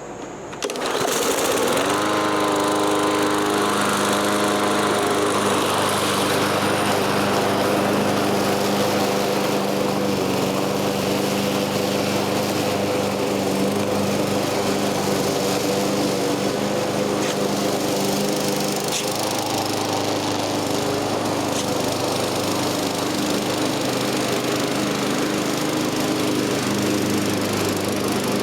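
Troy-Bilt 21-inch gas self-propelled lawn mower engine starting about a second in, rising in pitch over the next second, then running steadily.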